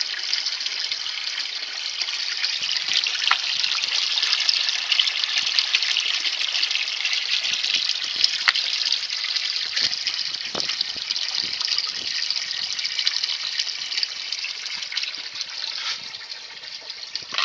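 Water draining through a bell siphon's standpipe and pouring into a bucket below: a steady gush with scattered drips and plinks, growing quieter near the end. The siphon is active, emptying the grow bed.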